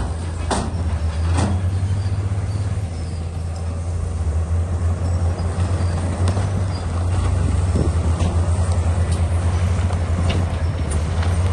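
Crawler bulldozer's diesel engine running steadily with a deep, fast-pulsing drone, with a few sharp knocks.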